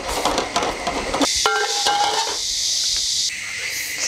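A spatula scraping and stirring fried tofu in a wok, with sizzling. About a second in, the scraping gives way to a steady hiss, and near the end a steady high insect chirring takes over.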